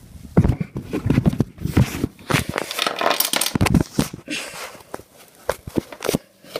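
Handling noise from small toys and a phone camera being moved over a plastic toy playset: a run of irregular clicks, knocks and scrapes, with a denser scraping stretch about midway.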